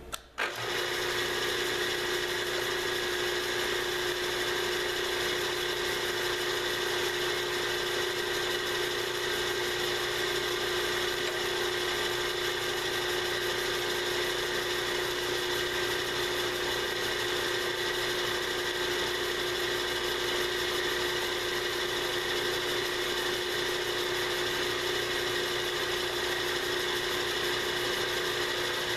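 Manual vertical knee mill running, its spindle turning an end mill at a steady speed: an even machine hum with a constant high whine. The end mill is lightly touched off on the work surface to set the pocket depth.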